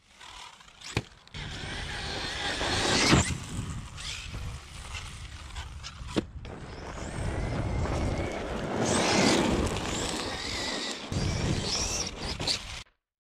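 Electric RC monster truck driving hard on dirt and gravel: the motor whines, rising and falling in pitch with the throttle, over tyre and stone noise. Sharp knocks from landings and impacts come about one, three and six seconds in.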